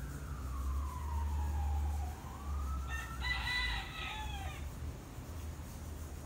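A siren wails, its pitch sliding slowly down and then back up, and about three seconds in a rooster crows once, briefly, over a steady low rumble.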